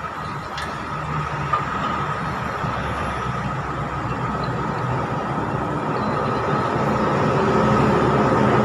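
A steady mechanical rumble with a constant high whine, slowly growing louder.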